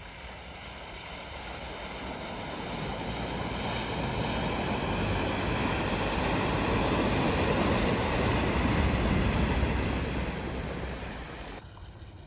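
Ford Ranger pickup truck wading through deep floodwater, its bow wave rushing and splashing, with the engine running underneath. The rush swells as the truck comes closest, is loudest about two-thirds of the way through, then fades and cuts off sharply near the end.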